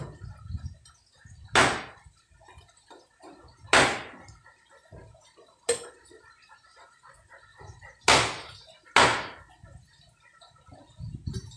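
Cleaver chopping a thin dry branch into kindling on a round wooden chopping block: four sharp chops, unevenly spaced, the last two under a second apart, with a lighter knock between the second and third.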